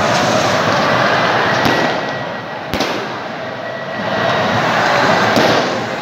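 Dense, steady noise of a large stadium crowd of football supporters, broken by three sharp firecracker bangs: about one and a half, three and five and a half seconds in.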